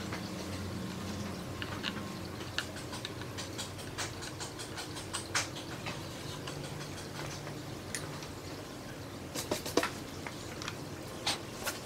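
Scattered light clicks and taps at an uneven pace, a few sharper ones near the end, over a faint steady hum.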